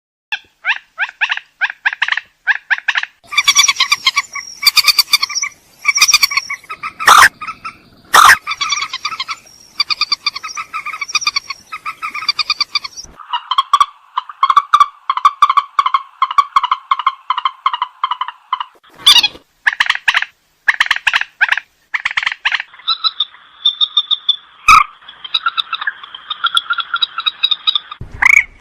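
White-breasted waterhen (ruak-ruak) calling loudly, with long runs of rapid, repeated croaking notes that sometimes overlap as if more than one bird is calling. Two sharp clicks cut through about seven and eight seconds in.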